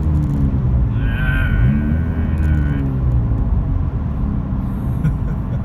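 2017 Honda Civic Si's 1.5-litre turbo engine running open, its exhaust disconnected from the front pipe, heard from inside the cabin while driving. Its low drone fades into a rough rumble near the start. A thin high whistle sounds for about two seconds, starting about a second in.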